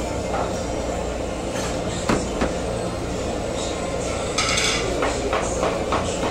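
Steady low background rumble of a restaurant, with scattered light clinks of spoons and chopsticks against ceramic bowls and a short rustling hiss about four and a half seconds in.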